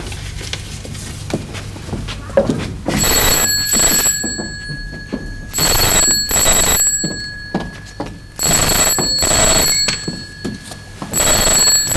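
Desk telephone bell ringing in double rings: four ring-rings, about three seconds apart, starting about three seconds in.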